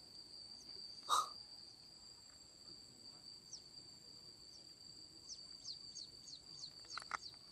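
Faint, steady high-pitched drone of insects in the lakeside vegetation. A brief sharp sound comes about a second in, and a run of short, falling high chirps comes through the second half.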